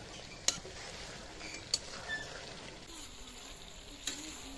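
Curry sizzling in an iron kadai over a wood fire while a metal spatula stirs it, knocking sharply against the pan three times.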